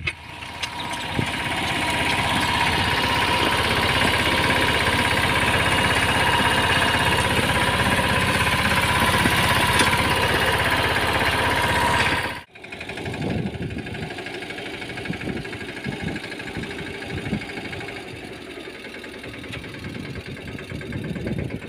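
Mahindra Yuvraj 215 mini tractor's single-cylinder diesel engine running, building up over the first couple of seconds and then running hard and steady. About twelve seconds in it cuts off suddenly and returns quieter, still with a rapid, even firing beat, as the tractor pulls a cultivator between groundnut rows.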